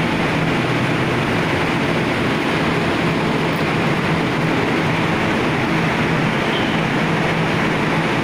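Steady drone of a large ship's machinery: a constant low hum under an even rushing noise, unchanging throughout.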